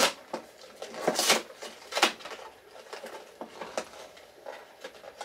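Plastic snack pouch being handled and opened, with scattered short crinkles and rustles, the loudest about a second in.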